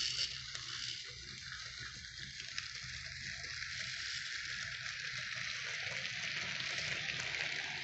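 Model train rolling past: a Roco BR 52 steam locomotive model hauling DB hopper wagons, giving a steady rushing rattle of wheels on the track over a low motor hum, growing a little louder toward the end.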